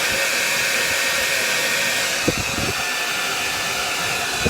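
Handheld hair dryer blowing steadily with an even rushing hiss, switched off right at the end.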